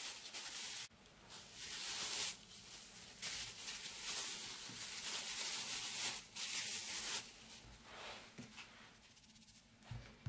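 Thin plastic bag crinkling in repeated rustling bursts as it is peeled off a ball of dough, dying down after about seven seconds. A soft thump near the end as the dough is pressed flat on the counter by hand.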